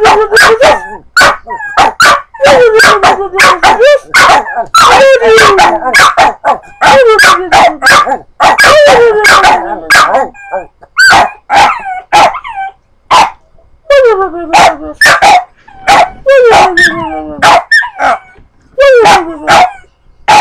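Dogs barking rapidly and almost without pause, many of the calls sliding down in pitch like drawn-out yowls.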